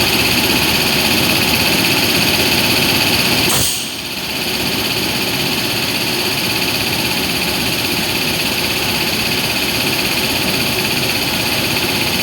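WAG-9 electric locomotive humming steadily, with several high whining tones over a rushing noise. A click and a brief dip in level come about four seconds in, then the hum carries on.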